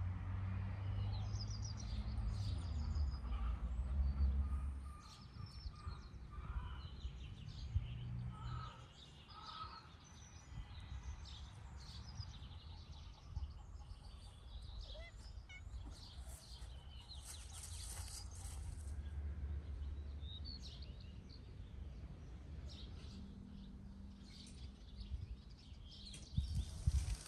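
Outdoor ambience of birds chirping and calling, with a low rumble that comes and goes.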